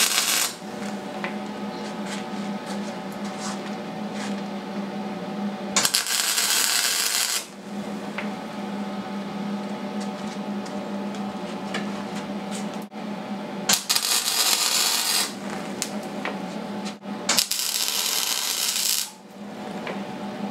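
Arc welder laying short tack welds on steel: the arc crackles in bursts of about a second and a half, three of them about 6, 14 and 18 seconds in, after the tail of one at the very start. A steady hum runs between the bursts.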